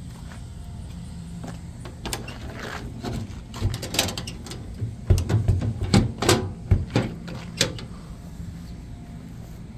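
A steady low engine hum, with a run of sharp knocks and clatter from about two seconds in to about eight seconds in.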